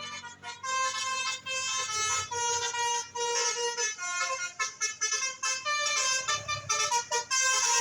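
Basuri telolet bus horn playing a tune of short stepped notes, one after another.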